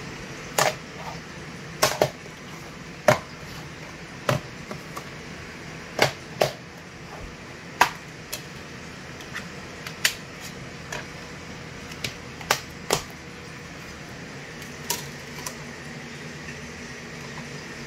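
Plastic DVD case being handled and opened and the disc lifted off its hub and set into a DVD player's disc tray: a string of sharp, irregular plastic clicks and clacks over a low steady hum.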